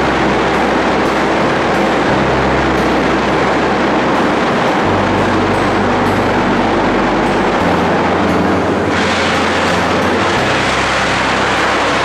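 Loud, steady industrial rumble and hiss of electric arc furnace plant machinery as the furnace roof is swung into place, with a low hum that shifts pitch every couple of seconds. The hiss grows brighter about nine seconds in.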